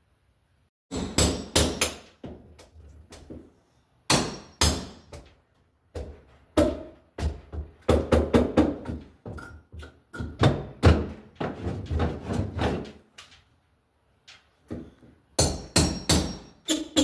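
Hammer blows on wood, coming in quick clusters of sharp knocks with short pauses between them.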